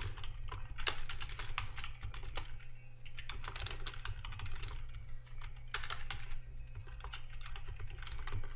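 Typing on a computer keyboard: runs of quick keystroke clicks with short pauses between them.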